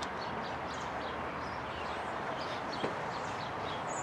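Small birds chirping repeatedly over a steady background hiss, with one sharp knock about three-quarters of the way through.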